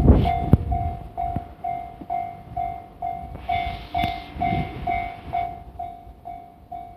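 Japanese level-crossing warning bell ringing steadily about twice a second while a train runs past, with heavy low rumbles loudest at the start and again about four and a half seconds in, and a hiss in the middle.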